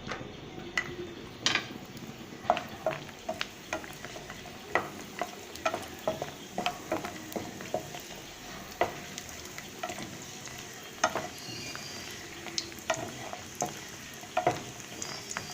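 Bori (dried lentil dumplings) frying in hot mustard oil in a pan, with a steady sizzle and frequent irregular taps and scrapes of a spatula against the pan as they are stirred.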